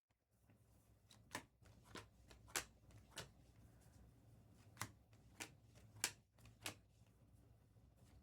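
Bowman basketball trading cards being flipped through by hand, a faint click about every half second.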